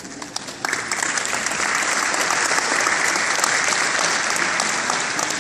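Audience applauding: a few scattered claps at first, then full applause from about a second in, thinning out near the end.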